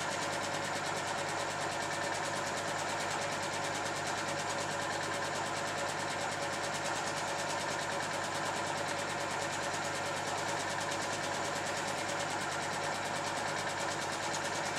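Film projector running: a steady mechanical whir with a fast, even clatter from the film advance, unchanging throughout.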